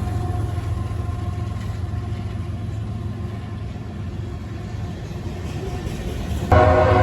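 Freight train rumbling steadily past between horn blasts, then the lead locomotive's horn sounds again suddenly and loudly near the end, a chord of several tones.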